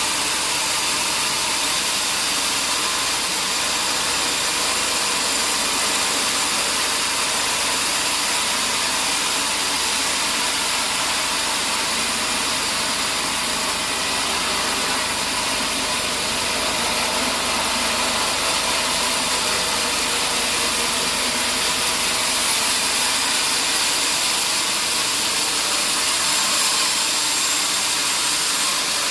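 Sawmill saw running with a steady, even, hissing noise and no breaks or changes in level.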